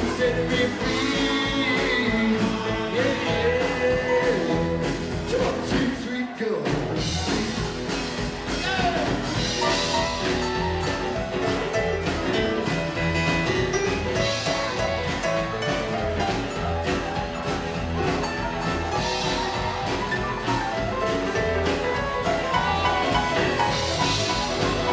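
Live rockabilly band playing: acoustic guitar, upright double bass, drum kit and keyboard, with a momentary break in the low end about six seconds in.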